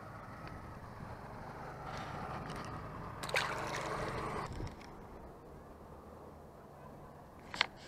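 Cast with a Daiwa Pixy baitcasting reel: a click, then the spool whirring for about a second and a half as line pays out, stopped abruptly. A single sharp click near the end, over steady wind and lapping water.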